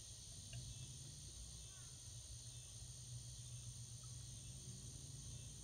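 Quiet room tone: a steady low hum with an even high-pitched hiss, and no distinct sound events.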